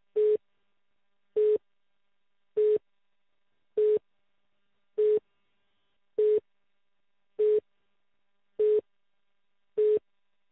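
Telephone line tone: nine short beeps at one steady pitch, evenly spaced about one every 1.2 seconds, heard over the phone line before the call connects.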